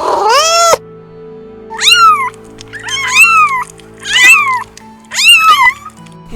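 Domestic cat meowing five times: one long, lower meow at the start, then four higher, shorter meows about a second apart, each rising and then falling in pitch. Soft background music with held notes underneath.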